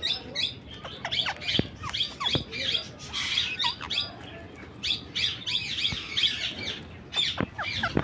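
Rose-ringed parakeets chirping and squawking in many short, quick calls while they eat seeds from a hand. A few sharp clicks come from their beaks working the seeds.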